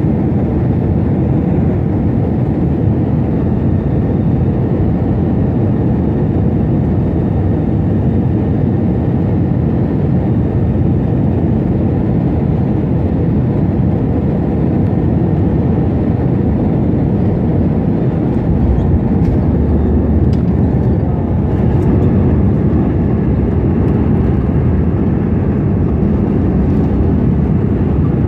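Cabin noise of an Airbus A321 airliner on final approach: a steady rush of airflow and engine noise. About two-thirds of the way through, the main wheels touch down and a deeper rumble from the runway comes in. The engine noise swells briefly a couple of seconds later as the aircraft rolls out.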